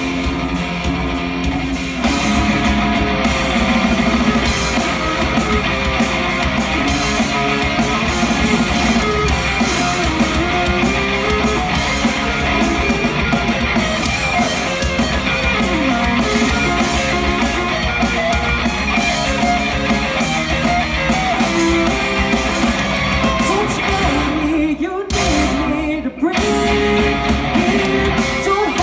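Rock band playing live and loud, with electric guitars, bass and drums. About 25 and 26 seconds in, the band cuts out twice for a split second before the music comes back in.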